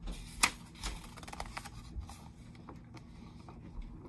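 A page of a large picture book being turned by hand: a sharp paper snap about half a second in, then about a second of crackly rustling, and a few faint ticks after that.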